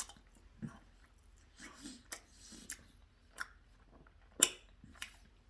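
A person chewing a mouthful of chicken sandwich close to the microphone, with a series of sharp clicks; the loudest comes about four and a half seconds in.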